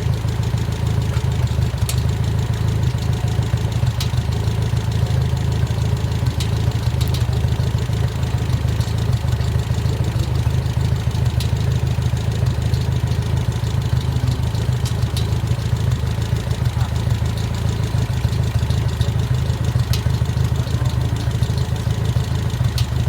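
An engine idling steadily: an even, low-pitched running sound that holds without change.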